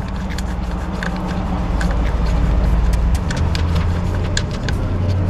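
A vehicle engine running with a low drone. It grows louder and steps up in pitch about three seconds in, with scattered light clicks over it.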